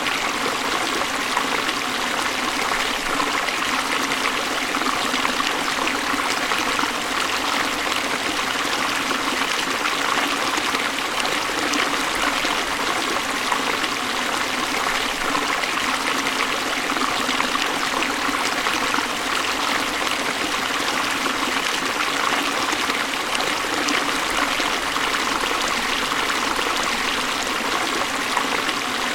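Waterfall: water falling in a steady, unbroken rush, more hiss than deep rumble.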